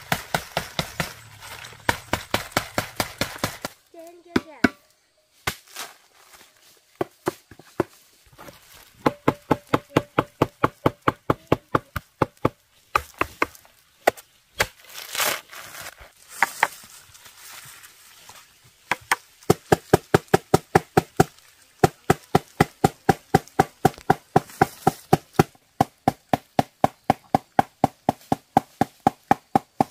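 Rapid, even chopping strokes of a knife, about four a second, coming in runs of a few seconds with short breaks between them.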